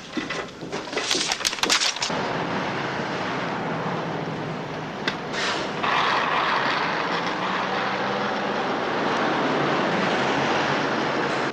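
About two seconds of rapid clicking office clatter, then steady street traffic noise that grows louder about six seconds in.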